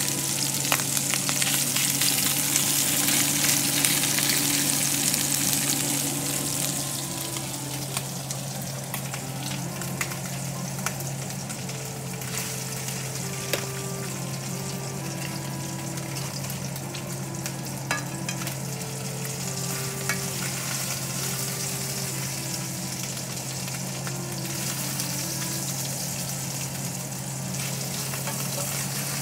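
Marinated beef slices sizzling in hot oil in a stainless-steel frying pan. The sizzle is loudest over the first few seconds, then settles to a steady sizzle, with a few light clicks.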